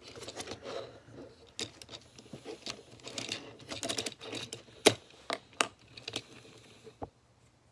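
Irregular hard plastic clicks and taps of a Transformers Titans Return Hardhead toy being handled, its parts knocking together, with one louder click about five seconds in.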